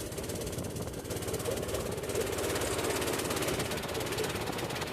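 Boat engine running steadily under way, a continuous rapid pulsing drone.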